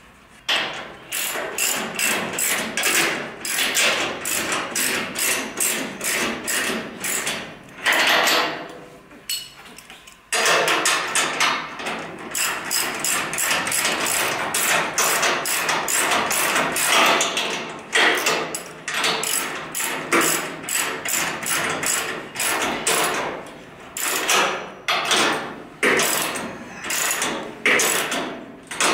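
Socket ratchet clicking in repeated back-and-forth strokes as it tightens a lower control arm pivot bolt, the nut held with a wrench. The clicking pauses briefly about a third of the way through, then carries on.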